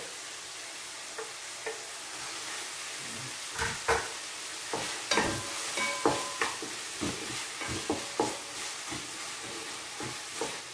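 Tomato, onion, garlic and green chillies sizzling in oil in a frying pan as a wooden spatula stirs them. From about three and a half seconds in, the spatula knocks and scrapes against the pan over and over.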